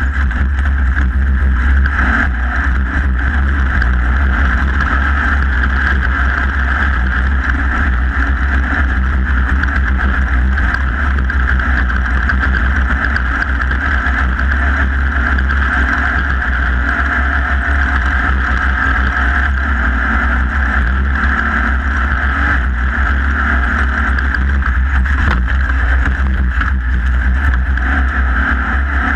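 Off-road race vehicle's engine running loud and steady at speed, with a constant deep rumble and rushing noise.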